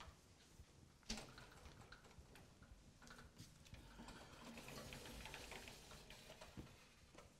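Faint clicks and taps of hands groping at a glass pantry door and along its shelves, with one sharper knock about a second in.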